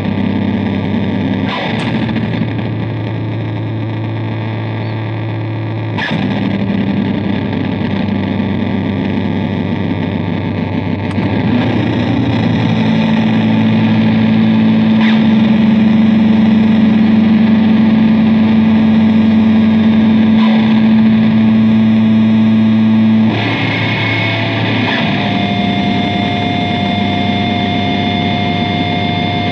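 Ibanez GSR200 electric bass played through heavy distortion on a Zoom G1Xon multi-effects pedal: sustained, droning low notes over a harsh, noisy wash. A new note is plucked every few seconds, with the last change a little over three quarters of the way through, after which a higher held tone rings above the drone.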